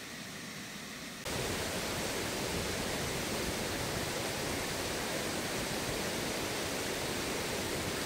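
Waterfall pouring into a pool, a steady rushing noise that cuts in abruptly about a second in, after a quieter steady hiss.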